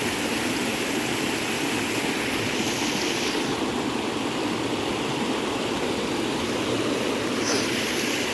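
Creek water rushing steadily, an even unbroken noise.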